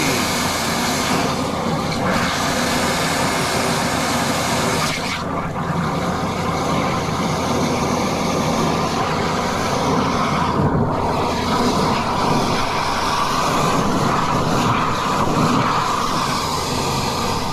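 High-pressure drain jetter running steadily, its hose blasting water through a sewer drain choked with tree roots.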